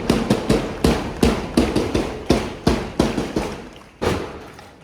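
Hands clapping in applause: a run of sharp claps, about two to three a second, that slows and fades, with one last clap about four seconds in.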